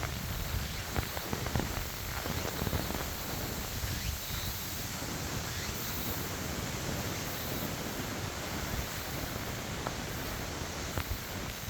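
Steady rain hiss with wind buffeting the microphone, rustling and a scattered few sharp ticks.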